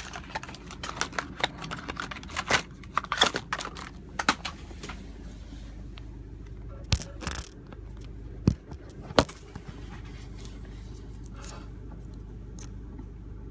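Scattered small clicks and metallic taps of a freshly cut key being handled and checked, thick in the first few seconds, then a few sharp clicks around the middle, over a faint steady low hum.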